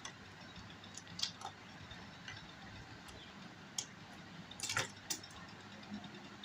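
A few faint, scattered clicks and taps over quiet room tone, with a small cluster of them a little before the end, from handling of the sewing work.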